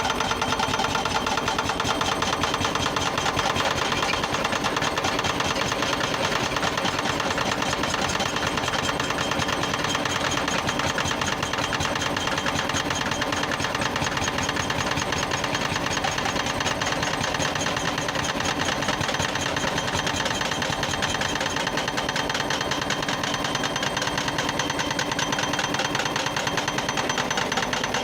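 Excavator engine running steadily at work, a dense, even mechanical noise with no pauses.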